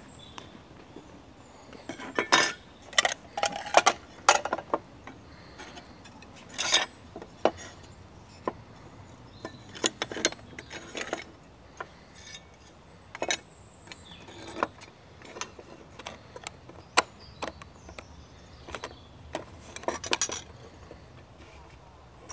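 Flat sheet-metal pieces of a homemade collapsible pot stand clinking, tapping and scraping against each other and the wooden table as they are handled and slotted together. Irregular clinks throughout, busiest about two to five seconds in.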